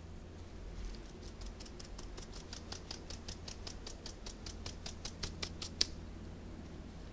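Dry flour mixture being sifted through a fine stainless-steel mesh sieve onto a countertop: a quick, even run of light taps, about five or six a second, growing louder and stopping about six seconds in.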